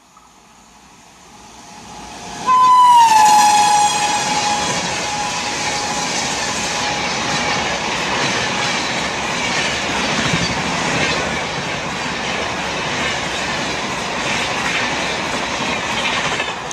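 WAP7 electric locomotive horn: one loud blast about two and a half seconds in that slides down in pitch and fades within two seconds, then the train rushing past with wheel clatter.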